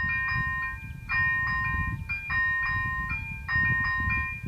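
Czech level-crossing warning signal's electronic bell ringing: a repeating chime of several tones, about one ring every 1.2 seconds, warning of an approaching train.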